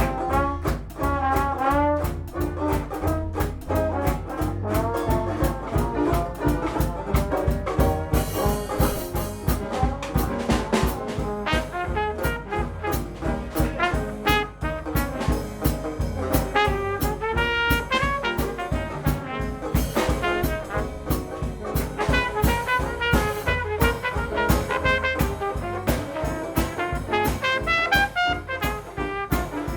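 Dixieland jazz band playing live, with a trumpet lead over piano, banjo and drums keeping a steady beat.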